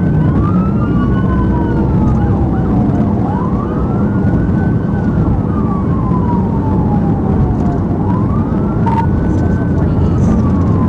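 Police car siren on a wail: the pitch rises quickly, holds briefly, then falls slowly, starting a new rise three times. Underneath is the steady road and engine noise of a patrol car driving at highway speed during a pursuit.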